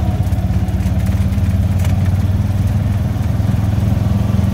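A vehicle's engine running steadily, a low, even drone with a fast regular pulse.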